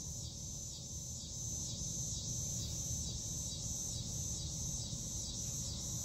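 Insects, crickets by the sound of it, trilling steadily in the background: a high, evenly pulsing trill over a low rumble of room noise.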